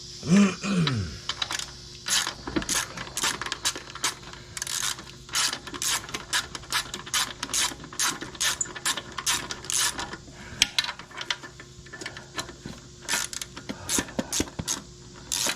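Hand socket ratchet clicking in quick irregular runs as muffler bolts are backed out.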